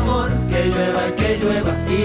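Background music with guitar and steady bass notes.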